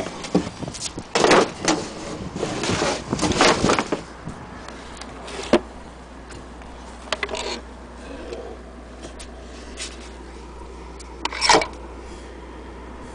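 Irregular knocks, scrapes and rustles of a vintage sewing machine being handled. They cluster in the first few seconds, then come as scattered clicks, with one sharp clatter near the end.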